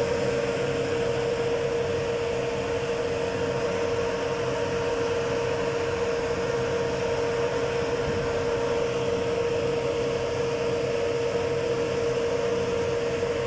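Steady mechanical drone of a ship's engines and machinery: a constant, unchanging hum over an even rushing noise.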